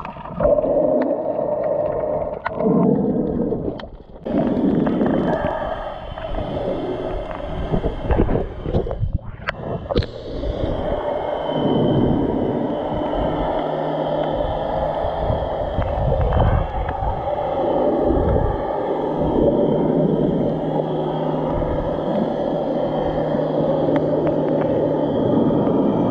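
Muffled underwater sound of moving water from a submerged camera while snorkeling: a continuous rushing and gurgling wash with a few small clicks early on, and a faint steady low hum from about halfway through.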